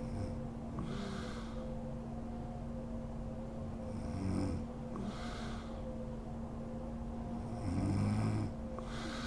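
A sleeping woman snoring: two low snores about four seconds apart, the second louder, each followed about a second later by a breathy hiss of breath. A steady background hum runs underneath.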